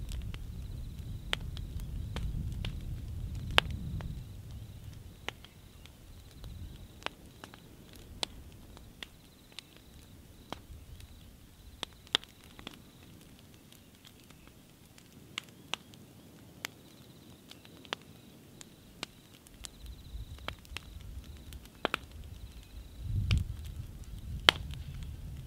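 A dying fire of burning timber and embers crackling, with scattered sharp pops about once or twice a second. A low wind rumble on the microphone comes and goes, strongest near the start and briefly near the end.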